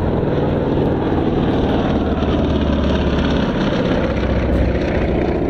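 Lisunov Li-2 flying past, its two nine-cylinder Shvetsov ASh-62IR radial engines and propellers giving a loud, steady drone. The engine note shifts a little lower past the middle as the aircraft passes and draws away.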